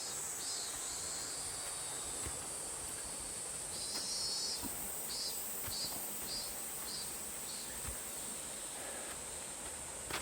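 Steady, high-pitched insect drone from the forest, with a run of short repeated chirping calls, about two a second, in the middle.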